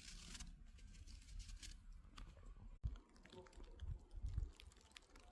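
Wet, slushy snow making faint, scattered ticks and crackles as it is handled and packed, with a few low thumps.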